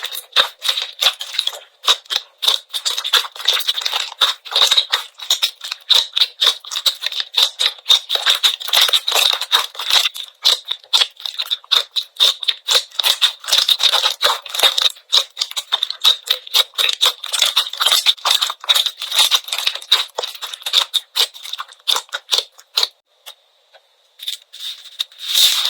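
Slime being squished and poked by hand, giving dense, rapid crackling and popping clicks. There is a pause of about two seconds near the end before the crackling resumes.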